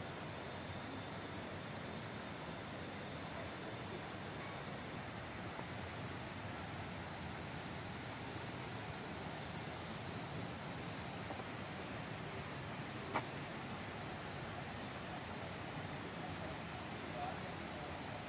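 Tropical garden ambience: insects holding one steady high drone over an even background hiss, with faint short high chirps repeating about once a second in the second half. A single sharp click comes near the middle.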